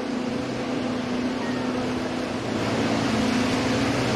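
Motorboat engine running steadily with a low, even hum, growing louder about two and a half seconds in.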